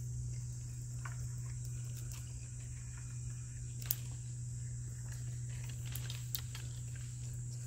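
Insects, likely crickets, chirring steadily at a high pitch over a steady low hum. A few sharp clicks come through, the loudest about four seconds in.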